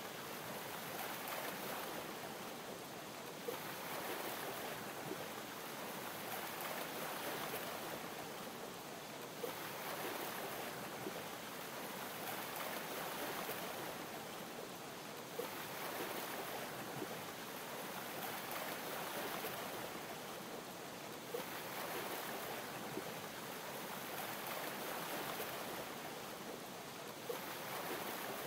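Waves lapping against a yacht's hull, an even wash of water that swells and eases in a regular cycle about every six seconds, under a fizzing hiss of champagne bubbles. Once in each cycle there is a small sharp tick.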